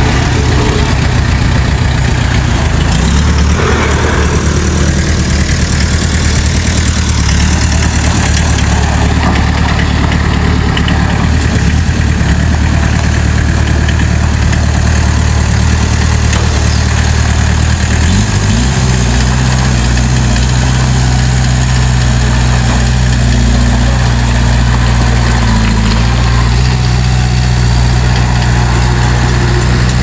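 Diesel engine of a Komatsu D20P crawler bulldozer running steadily, its note shifting about three seconds in and again about eighteen seconds in.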